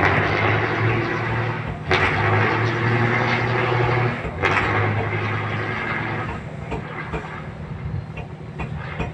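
Fishing boat's inboard diesel engine running under way, surging louder three times in the first six seconds, then easing off.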